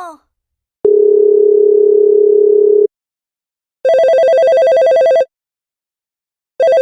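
Telephone sound effect: a steady dial tone for about two seconds, then an electronic phone ring, a fast warbling trill lasting about a second and a half, which starts again near the end.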